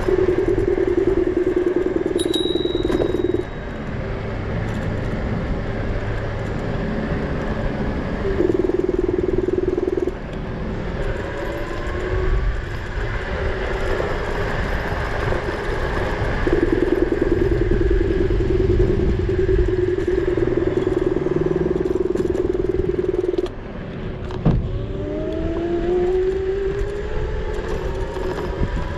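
Dualtron Mini electric scooter's hub motor whining at a steady pitch while cruising, dropping out several times when the throttle is released and rising in pitch as it accelerates again near the end. Wind and tyre rumble run underneath, with a sharp click about 24 seconds in.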